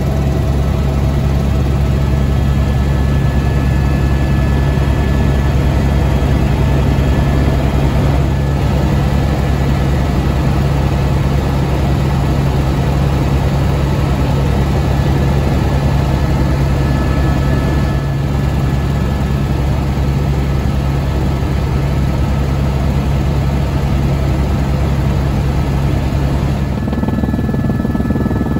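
Steady drone of a helicopter's engine and rotor heard from inside the cabin, with a constant high whine over it. Near the end the higher hiss drops away and the low drone changes.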